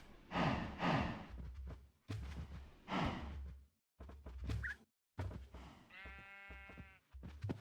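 Animal calls in choppy bursts broken by abrupt gaps, with one long bleat-like call about six seconds in.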